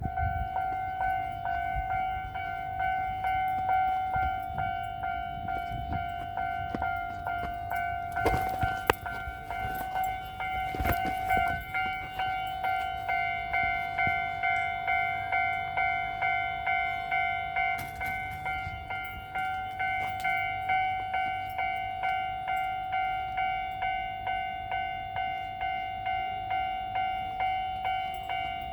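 Japanese level-crossing warning signal ringing in a steady repeating electronic clang, a little over one strike a second. A train passes over the crossing with a short burst of rail noise about eight to eleven seconds in.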